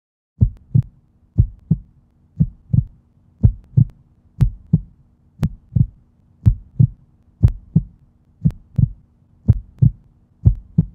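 Heartbeat sound effect: a deep double thump, lub-dub, repeating about once a second over a faint steady hum, starting about half a second in.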